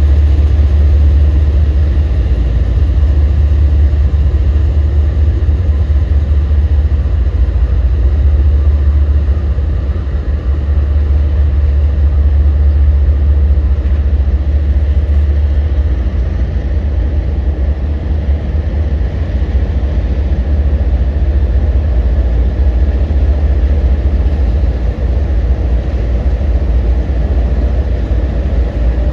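Diesel locomotive engine sound from HO scale DCC sound-equipped model locomotives, a long multi-unit consist running steadily with a heavy low rumble.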